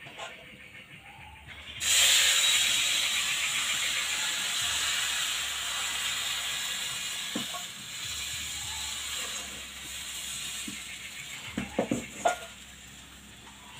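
Thin rice-and-urad-dal batter poured into a hot, lightly oiled kadai, setting off a sudden loud sizzle that slowly dies down as the pan is swirled to spread the crepe. A few short knocks come near the end.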